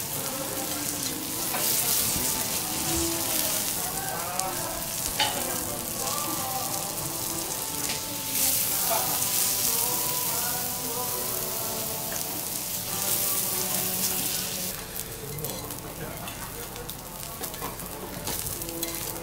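Kuroge Wagyu beef blocks sizzling in their fat on a steel teppanyaki griddle, with a few sharp clicks of the metal spatulas against the plate. The sizzle swells several times and eases off in the last few seconds.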